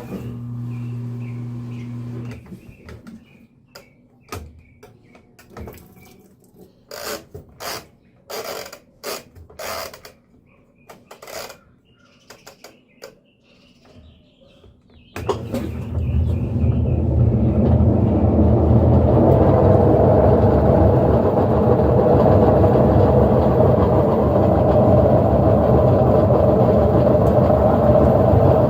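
General Electric washing machine: a short steady motor hum, then a run of clicks as the stuck timer dial is turned by hand. About halfway through, the machine starts its spin and builds over a few seconds into a loud, steady mechanical running noise. The spin makes a lot of noise, which the repairer puts down to worn bearings and a transmission seal that need replacing.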